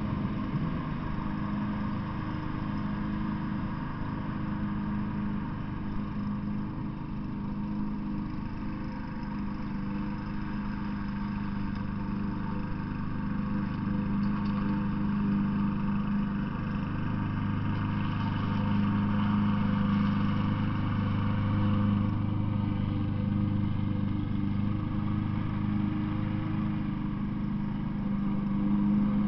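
A steady engine drone with a low hum, growing somewhat louder and deeper a little past the middle.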